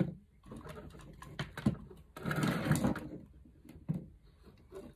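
Handling noise of a plastic light-switch plate and a round LED downlight being slid and shifted on a desk: irregular scraping and rubbing, loudest a little past halfway, with a few light clicks and knocks.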